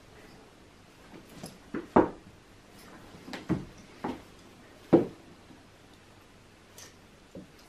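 Several short, sharp knocks and bumps, the loudest about two seconds and five seconds in, with two faint ones near the end.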